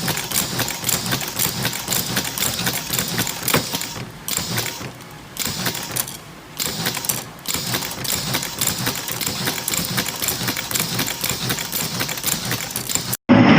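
A machine clattering with rapid, dense clicks, like a typewriter, easing off briefly a few times midway. It stops abruptly near the end.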